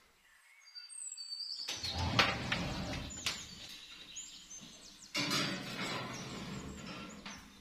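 A glass baking dish knocking and scraping on a wire oven rack as it is pushed into the oven, louder again about five seconds in. A few high chirps come just before it, about a second in.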